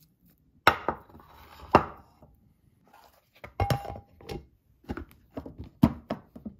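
Glass Ziploc food-storage container knocked and handled on a stone counter, then its plastic snap-on lid set on and pressed down. The sound is a series of sharp knocks and clicks with a brief squeak, the loudest near the end as the lid is pushed home.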